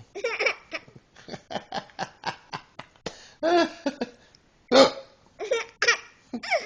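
Pretend hiccups from a man and a baby: short, sharp vocal gulps, with a quick run of laughing bursts between them. The louder single hiccup sounds come about halfway through and near the end.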